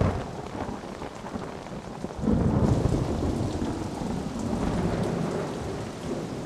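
Storm sound: steady heavy rain with low rolling thunder, a louder rumble swelling about two seconds in and slowly fading.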